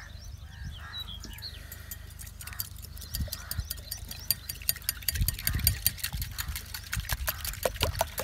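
A coiled wire whisk beating eggs in a glass bowl, the wire clicking rapidly against the glass. The clicking starts about three seconds in and grows faster and denser toward the end.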